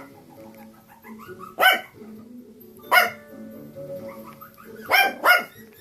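A dog barking four times, the first two a second or more apart and the last two in quick succession, over soft background music.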